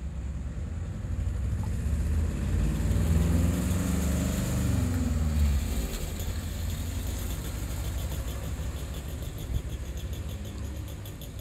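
A truck driving past on the road: its engine rumble builds, peaks about four to five seconds in with its pitch dropping as it passes, then fades away.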